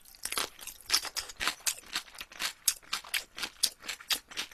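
Close-miked chewing of a mouthful of marinated shrimp and rice: a steady run of wet crunching clicks, about four a second.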